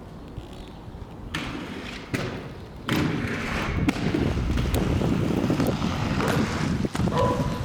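Skateboard rolling over street pavement, a rough rumbling that builds about three seconds in, with scattered thuds and clacks of the board.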